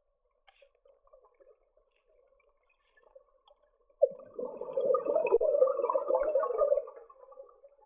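Scuba diver's exhaled breath bubbling out of the regulator underwater: a sudden gurgling burst about four seconds in that lasts about three seconds and then fades, after a few seconds of faint underwater crackle.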